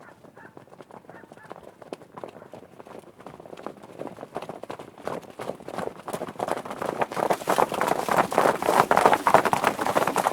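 Horses galloping, a dense run of hoofbeats that grows steadily louder as they approach, loudest near the end.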